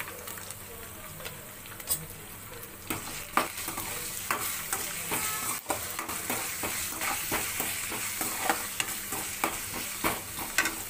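Curry leaves, coriander leaves and ginger-garlic paste sizzling in hot oil in a metal kadai. From about three seconds in, they are stirred, with many short scrapes and knocks of the utensil against the pan over the steady sizzle.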